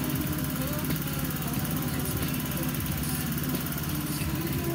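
Small engine running steadily at a constant speed, a continuous low drone.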